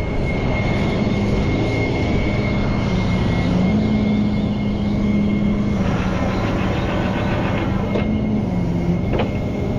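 Rollback tow truck's engine running with the hydraulics engaged, a steady drone that rises and dips slightly in pitch, with a thin steady high whine over it.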